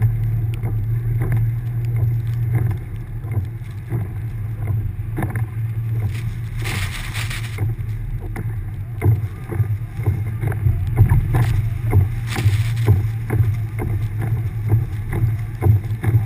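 A 1999 Subaru Forester's flat-four engine drones steadily as the car pushes through deep snow, with frequent knocks as it jolts along. Two brief rushing hisses come about 7 and 12 seconds in.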